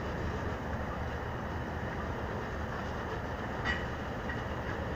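Coal train wagons rolling past: a steady rumble of steel wheels on the rails, with one sharp click about three-quarters of the way through.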